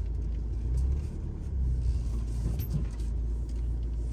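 Low, steady rumble of a 4x4 vehicle driving slowly over a rough bush track, heard from inside the vehicle, swelling and easing as it crawls along. A few light clicks come a little over halfway through.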